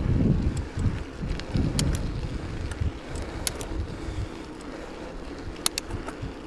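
Wind rumbling in gusts on the microphone while a Trek Liquid 30 full-suspension mountain bike is ridden along, with a few scattered sharp clicks.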